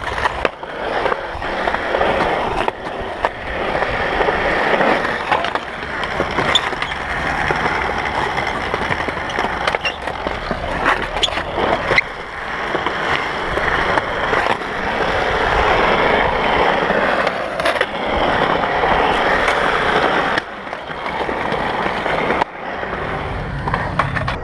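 Skateboard wheels rolling over smooth concrete, a continuous rolling hiss with a few sharp clacks scattered through it. The sound dips briefly a couple of times near the end.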